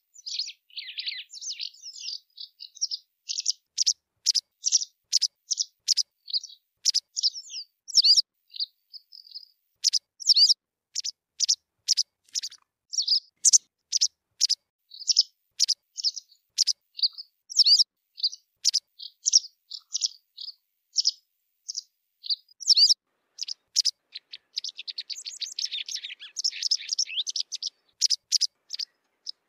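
White wagtail calling: a long series of short, sharp chirps, one or two a second, thickening into fast twittering near the end.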